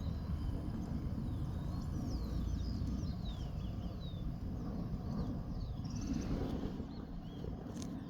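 Small birds chirping in short falling calls, with a quick trill about six seconds in, over a steady low rumble.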